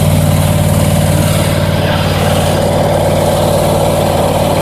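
Toro Titan ZX5400 zero-turn lawn mower's engine running steadily at an even speed.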